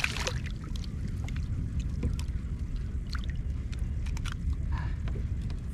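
Hobie Outback kayak on the sea: a steady low rumble of water against the hull, with scattered small clicks and knocks.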